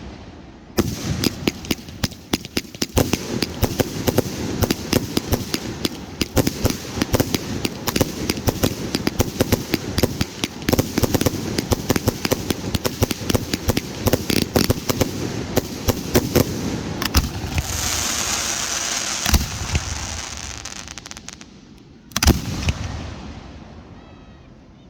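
Fireworks going off: rapid volleys of bangs and pops for about seventeen seconds. Then comes a few seconds of hissing crackle with one sharp bang in it. A single loud bang near the end dies away.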